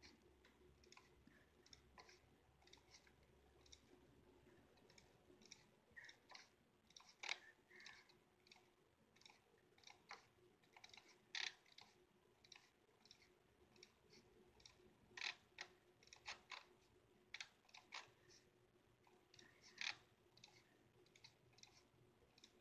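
Faint, irregular clicks of a computer's pointer buttons, sometimes single and sometimes in quick clusters of two or three, as colours are picked and filled in a drawing program.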